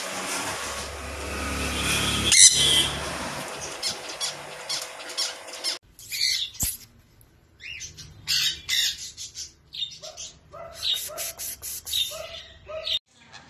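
Sun conures calling with short, high-pitched squawks and chirps. A loud screech comes about two and a half seconds in over a steady background hum, then quick runs of sharp calls follow, densest near the end.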